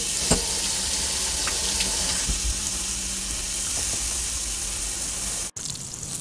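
Plant-based Beyond Burger patties sizzling in hot olive oil in a stainless steel frying pan: a steady hiss with a few pops. It cuts out for an instant about five and a half seconds in and comes back quieter.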